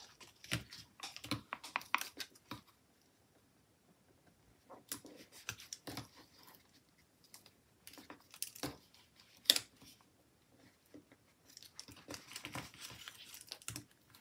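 Paper stickers and planner pages being handled: scattered rustles, crinkles and light taps, with small scissors snipping paper partway through. The loudest is a single sharp click a little past halfway.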